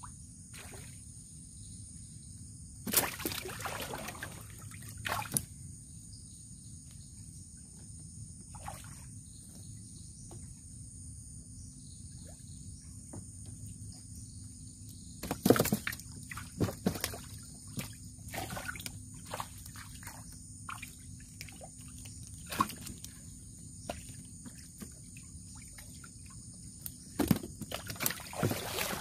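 Scattered splashes and sloshes of water against a canoe as a handline is cast and worked, with a few sharp knocks; the strongest comes about halfway through. A steady high-pitched insect drone runs underneath.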